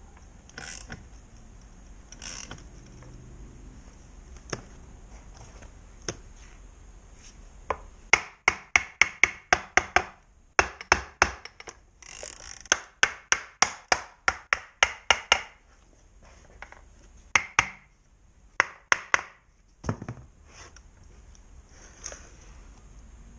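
Socket ratchet clicking in quick runs of about three or four clicks a second as it turns the forcing screw of a crankcase splitter, pressing apart the centre crankcase halves of a Honda NSR 125 R engine. A single dull thump comes near the end.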